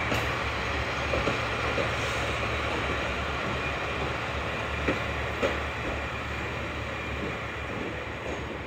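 KiHa 40-series diesel railcar passing at low speed: a steady low diesel drone and wheel rumble, with a few sharp clicks of the wheels over rail joints, easing slightly toward the end as it pulls away.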